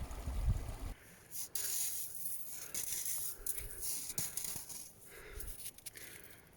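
Wind buffeting the microphone for about the first second. Then it drops away, leaving rustling and crunching noises with scattered light clicks.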